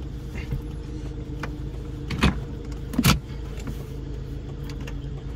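A car's engine and road noise heard while driving, a steady low drone, with two short knocks about two and three seconds in.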